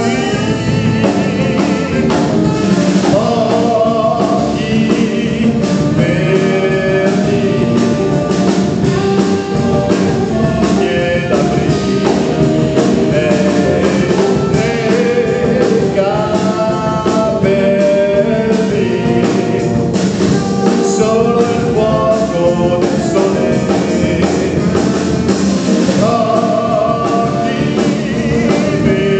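A live band playing a song: a man sings in Italian over electric guitar, electric bass and drum kit.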